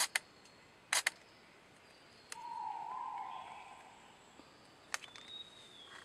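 Rainforest ambience with a few sharp clicks, a low noisy sound lasting about a second and a half from a little over two seconds in, and a thin high whistle near the end.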